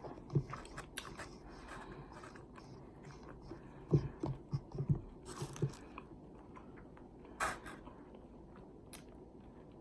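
Close-miked chewing and biting of food: soft wet smacks and mouth clicks, with a run of louder bites and smacks about four to six seconds in.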